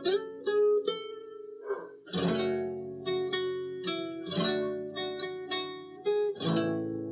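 Background music on guitar: picked notes, with a strummed chord about every two seconds.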